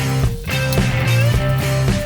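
Rock background music with guitar over a steady beat.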